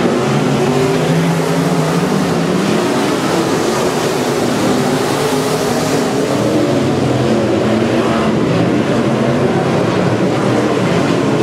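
Dirt modified race car's V8 engine running hard at speed, its pitch wavering up and down as it laps, with a noisy rasp over the top.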